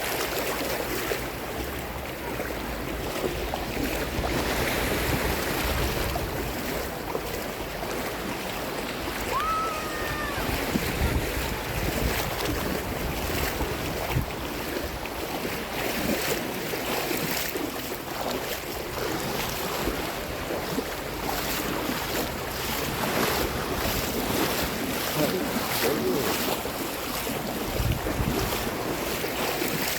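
Seawater splashing and washing in small waves, with gusts of wind rumbling on the microphone near the start and near the end. A short rising chirp-like call sounds once about ten seconds in.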